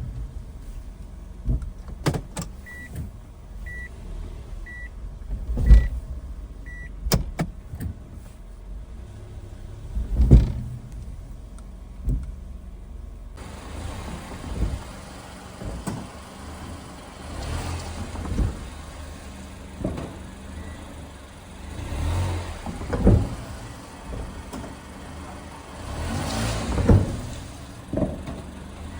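Mazda Demio's suspension giving repeated hard clunks, the knocking over bumps that the owner links to the shock absorbers. Five short beeps about a second apart come a few seconds in, and a steady rush of noise rises about halfway through.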